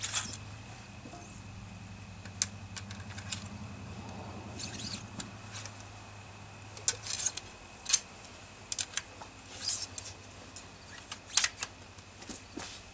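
Scattered light clicks, taps and scrapes of hands loading a .50 caliber BPI Buckhorn muzzleloading rifle at the muzzle. A steady low hum fades out about seven seconds in.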